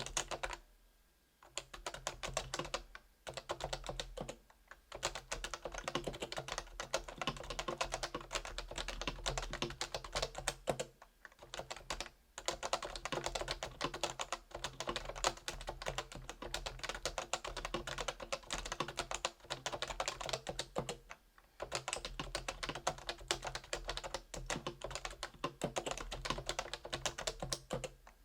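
Continuous fast typing on a Realforce R2 keyboard with stock 45 g Topre electrostatic-capacitive switches: a dense run of key presses, broken by brief pauses of about a second several times.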